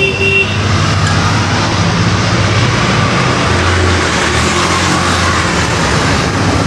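Steady road traffic noise with the low running hum of a vehicle engine that swells and eases off; a short high tone sounds right at the start.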